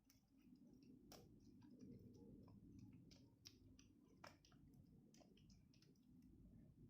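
Faint, irregular small clicks and sticky squelches of homemade slime being kneaded and pulled by hand.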